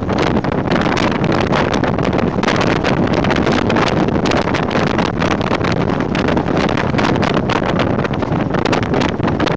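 Jeep CJ7 driving at speed, heard through a microphone mounted on the outside of the body: a loud, steady rush of wind buffeting the microphone over the noise of the engine and tyres.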